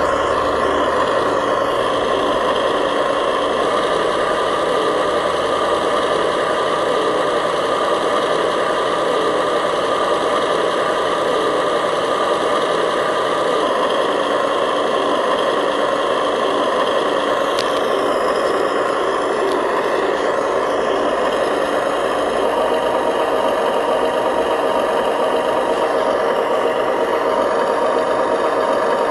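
Radio-controlled model construction truck running: a steady engine-like drone with a rattle, holding much the same pitch throughout.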